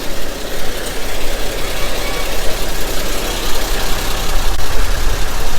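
Heavy truck engines of a concrete pump truck and concrete mixer trucks running steadily, a continuous noisy rumble. The low rumble grows stronger near the end.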